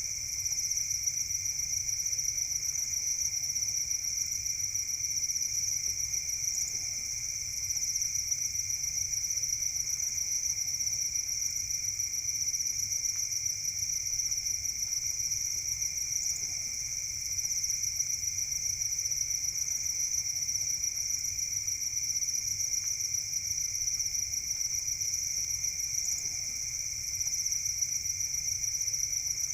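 Many farmed crickets chirping together in a dense, steady, high-pitched trill that does not let up.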